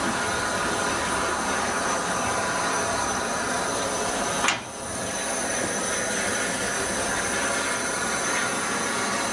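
Bulleid West Country class Pacific steam locomotive 34046 Braunton giving off a steady hiss of steam. A single sharp click comes about halfway through.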